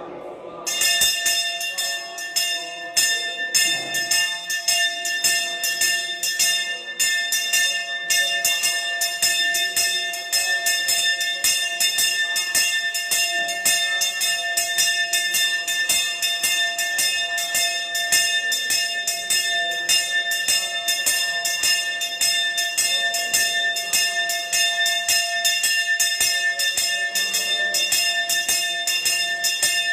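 Brass hand bell rung rapidly and without pause for worship, starting just under a second in, its strokes merging into a steady ring.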